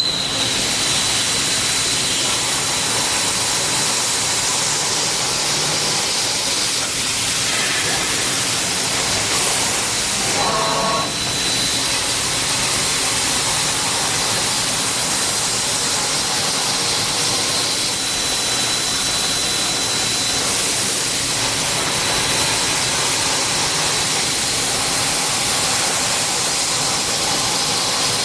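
Kotec Newrun-7DX CNC multi-beam drilling machine running: a steady hissing machine noise with a faint constant high whine, and a short different tone about ten seconds in.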